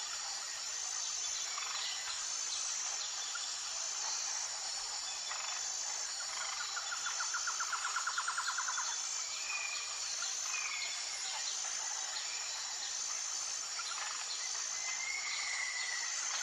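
Tropical nature ambience: a steady high-pitched insect chorus with a regular pulsing buzz, a rapid pulsed trill for about two seconds around the middle, and a few short whistled bird calls in the second half.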